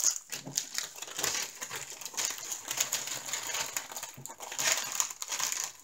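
Clear plastic packaging crinkling and rustling in short, irregular crackles as hands handle bagged strips of diamond-painting drills.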